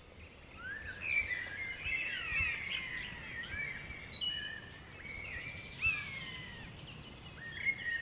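Several songbirds singing in woodland: overlapping chirps and short whistled phrases, some sliding down in pitch, fading in over the first second.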